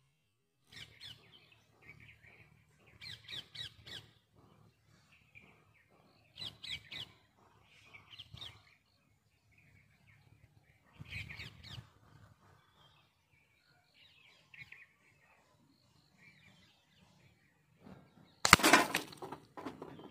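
Small birds chirping in short bursts, then near the end one loud, sharp shot from an Aarmr 350 Magnum CO2 pistol, its pellet striking the plastic bottle target.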